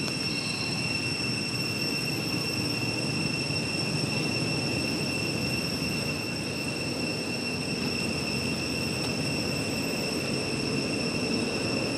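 A steady high-pitched drone of one unchanging pitch with overtones, over a low, even rumble of background noise.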